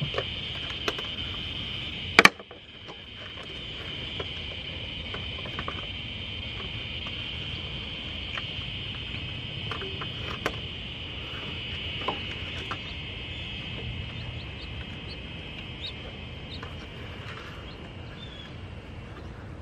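Steady high-pitched drone of insects outdoors. Over it, one sharp click about two seconds in, then scattered faint clicks and taps as hands work plastic clips and parts in the engine bay.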